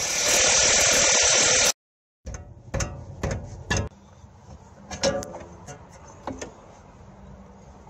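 Cordless impact driver running steadily for about a second and a half on a rear suspension bolt, cutting off suddenly. After it come several sharp metallic clanks and clicks as the coilover's lower mounting bolt and the suspension parts are handled.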